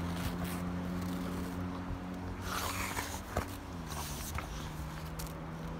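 Boxer dog rolling on its back in snow: short bursts of snow crunching and scuffing under its body, over a steady low hum.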